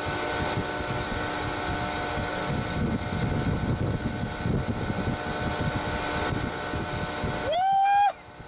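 A steady mechanical drone with several held tones in it. It cuts off abruptly near the end, and a single rising-and-falling whistle-like note starts.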